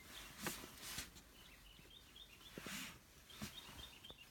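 Faint birds chirping in the background, two quick runs of short repeated notes, with a few soft clicks and rustles of handling close by.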